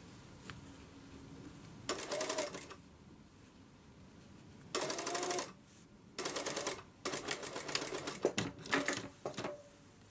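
Industrial sewing machine stitching in short stop-and-go runs: about five bursts of rapid needle strokes, each under a second long, with pauses between them.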